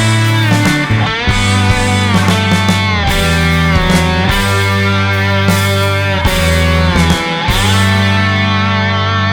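Background rock music led by guitar, with sustained bass notes and bending guitar lines.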